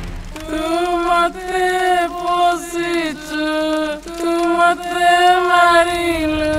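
A single high voice singing a slow lullaby in long held notes that bend slightly, phrase after phrase with short breaks between them.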